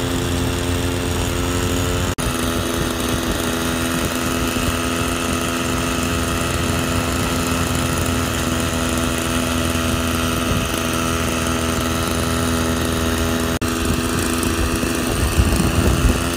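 Small motorcycle engine running steadily with a constant droning hum. The sound cuts out for an instant twice, about two seconds in and near fourteen seconds, and grows more uneven near the end.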